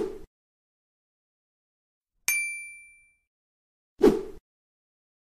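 Subscribe-button animation sound effects: a short mouse-click sound, then a bright bell ding about two seconds in that rings out for less than a second, then another short click about four seconds in.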